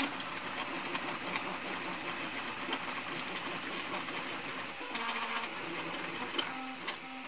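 MakerFarm Prusa i3v 3D printer running a print: its stepper motors whir and click as the print head and the extended heat bed move back and forth. There is a rattling vibration as the bed travels, which the owner puts down to screws that need tightening.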